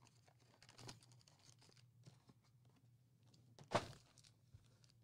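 Faint crinkling and tearing of a trading-card pack wrapper being opened, with one brief louder rip about four seconds in.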